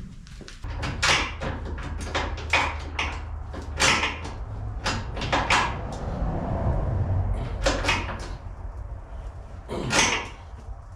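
Irregular knocks and clanks of work fitting a steel rear bumper onto a Jeep Cherokee, over a steady low hum.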